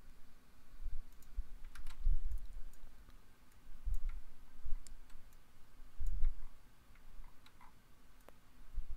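Computer mouse clicks and keyboard keystrokes, scattered light clicks, with several low dull thumps, the loudest about four and six seconds in.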